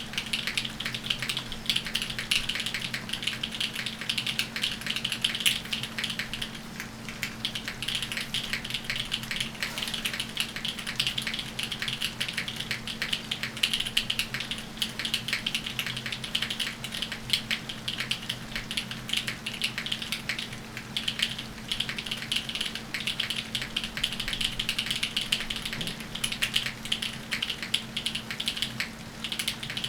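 Continuous fast typing on a Frog mechanical keyboard with an aluminium plate and linear MX Black switches fitted with Kailh stems: a dense, unbroken stream of key clacks.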